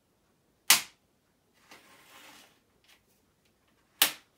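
Two sharp pops about three seconds apart, each dying away quickly: a kitchen knife jabbed at the plastic film sealing a tray of meatballs.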